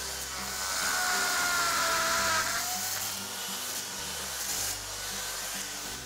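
Masonry hammer drill boring a 3/8-inch injection port through a concrete floor slab, re-drilling a port that cured foam has sealed. Its motor whine is loudest over the first couple of seconds and sags slightly in pitch. Background music plays underneath.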